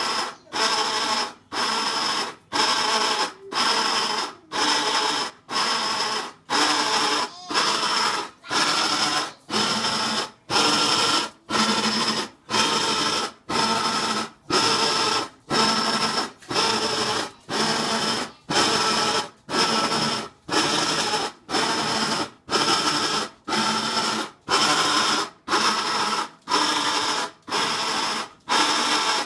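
Whirlpool Cabrio top-load washing machine making a loud, rhythmic mechanical noise: a burst of about half a second, with a high whine in it, repeating about every three-quarters of a second with short quiet gaps between. It is an undiagnosed fault noise that the owner says keeps getting louder.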